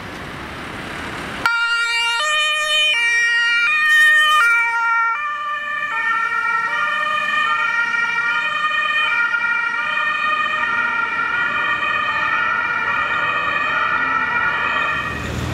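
An ambulance's German two-tone siren (Martinshorn) switches on about a second and a half in, alternating between a high and a low tone roughly every three-quarters of a second as the ambulance moves off on an emergency run. Before it starts, only engine and traffic noise is heard.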